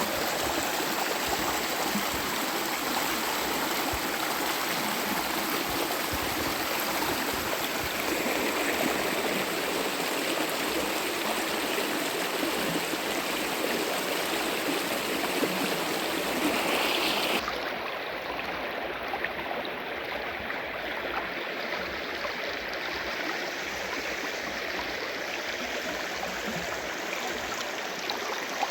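Steady rushing of running water, like a stream, used as natural white noise. A little past halfway the hiss loses its highest part and becomes slightly quieter.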